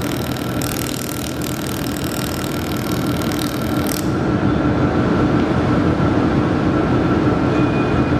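Handheld laser welding machine running: a steady machine hum with a high hiss over it that cuts off suddenly about four seconds in, the hum carrying on.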